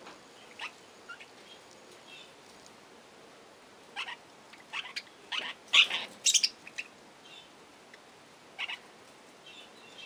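Budgerigars chirping: short, sharp calls, scattered at first, then a busy run of louder chirps in the middle.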